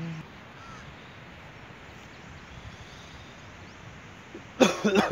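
Steady open-air hiss, then a loud, harsh call near the end, heard twice in quick succession.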